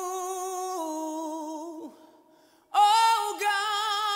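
A man singing a slow gospel worship line with no accompaniment. A long held note steps down once and fades out about two seconds in, then after a short breath a louder held note on "oh" begins.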